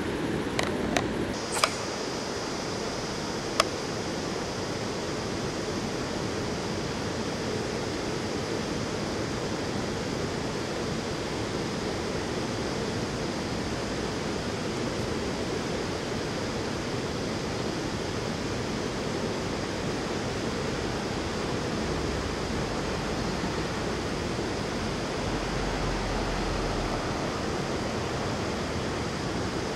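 Steady rushing of flowing river water, with a few sharp clicks in the first few seconds.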